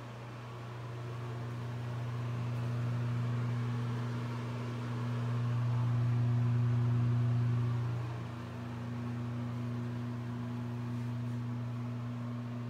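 Ventilation fan running: a steady motor hum with an airy hiss, louder in the middle and dropping back about eight seconds in.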